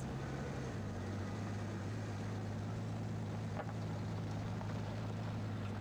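Steady low hum over an even hiss, with no change in level; it cuts off abruptly right at the end.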